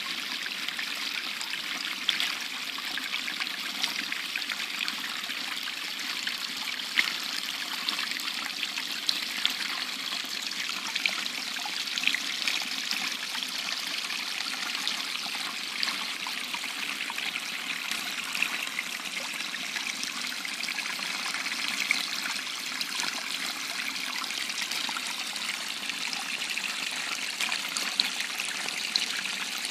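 Small, shallow woodland stream trickling steadily over stones and roots, with faint scattered splashes.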